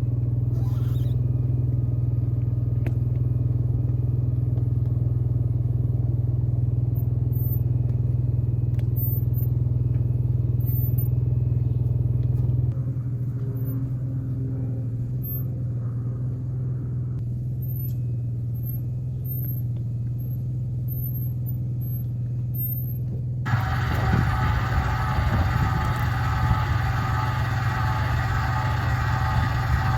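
Truck engine running with a steady low drone, changing character about 13 s and 23 s in, the last stretch with more hiss.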